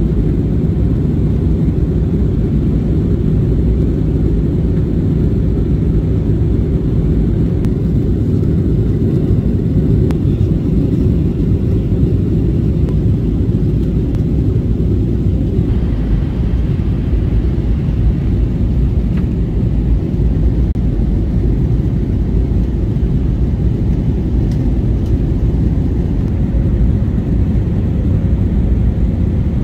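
Steady engine and airflow rumble inside the cabin of an Airbus A320-200 in descent toward landing, with the hiss changing slightly about halfway through.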